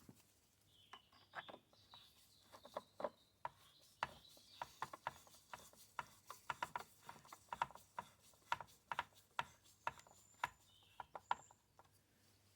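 Irregular sharp clicks and knocks, a few a second, of hand tools and parts being worked as the back cover of a Stihl 056 AV chainsaw is fastened on.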